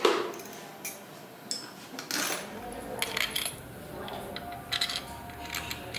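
Small metal parts clinking: bolts and screws handled and set against the motorcycle engine casing, a sharp clink right at the start and several lighter ones after.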